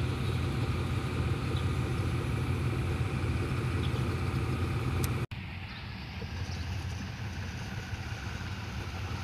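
GEK-class diesel locomotive 4015 running steadily with a low rumble while shunting. About five seconds in, the sound cuts off abruptly and carries on quieter.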